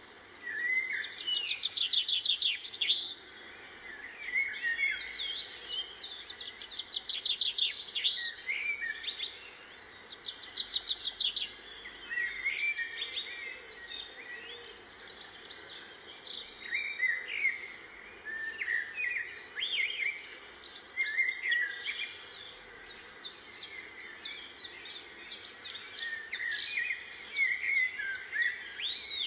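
Small birds chirping in quick, overlapping calls, coming and going with short lulls.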